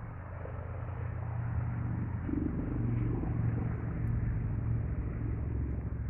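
Road traffic: a car going by on a nearby road, its low engine and tyre rumble swelling through the middle and easing near the end.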